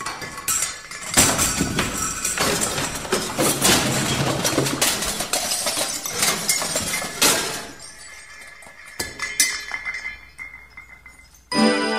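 Glass clinking and breaking: a dense run of sharp crashes that thins out after about seven seconds into scattered hits. Music starts near the end.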